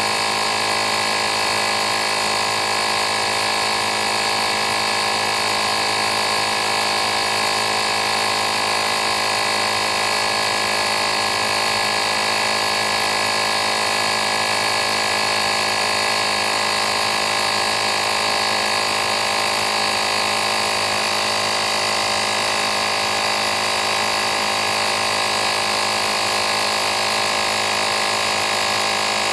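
Fanttik X8 APEX cordless tire inflator's small piston compressor running steadily, a constant mechanical hum and buzz.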